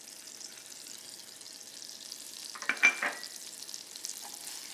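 Butter and brown sugar sizzling in a hot stainless-steel pan while being stirred into caramel. A little under three seconds in there is a short clatter of the stirring utensil against the pan, with a brief metallic ring.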